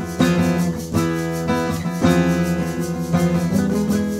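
Background music led by a plucked, strummed guitar.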